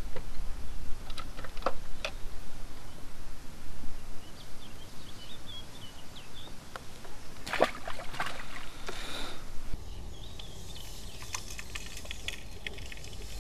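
Outdoor lakeside ambience: wind buffeting the microphone with a low rumble, faint bird chirps, and a few sharp clicks and knocks, the loudest about seven and a half seconds in. From about ten seconds in the rumble drops away, leaving a steadier, quieter background with bird calls and light ticks.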